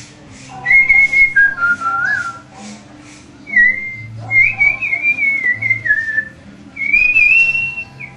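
A man whistling a melody in three phrases, along with a song playing faintly on a stereo.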